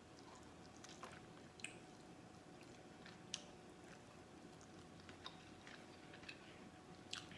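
Faint chewing of garlic parmesan chicken wings, with a few soft, sharp mouth clicks and smacks scattered through.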